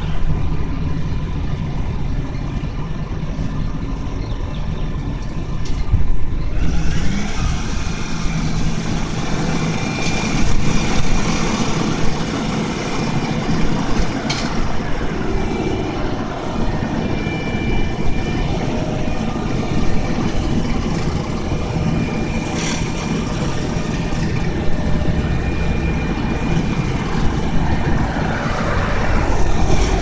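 Volvo asphalt paver and a tipping dump truck running together while the truck feeds the paver's hopper: a steady heavy diesel engine noise, with a few short sharp knocks at about ten, fourteen and twenty-three seconds in.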